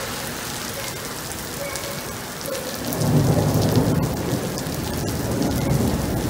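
Steady rain falling on wet pavement, with a low rumble of thunder that builds about three seconds in and keeps rumbling.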